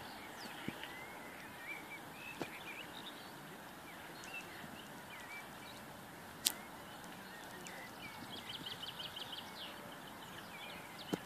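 Small songbirds chirping and twittering over steady background noise, with a fast trill of quickly repeated notes near the end. A single sharp click about halfway through is the loudest sound.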